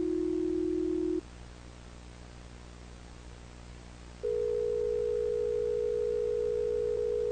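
A steady electronic test tone cuts off about a second in, leaving a faint low hum. About three seconds later a higher steady tone starts and holds.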